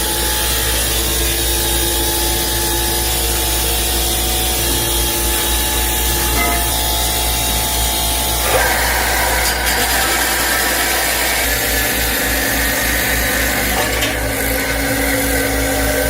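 Metalworking machinery and power tools running steadily in a fabrication shop: a loud, continuous noise with steady whining tones. The tones change pitch about halfway through, and a pulsing low rumble sets in near the end.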